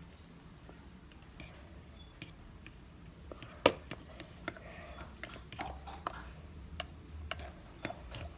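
Scattered light clicks and knocks of kitchen utensils and dishes being handled, with one sharper knock about three and a half seconds in.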